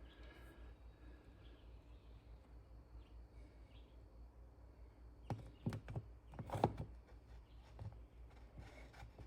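A few faint knocks and clicks of parts being handled as a new drive gear is fitted onto a garage door opener's shaft, bunched about five to seven seconds in, over a steady low hum.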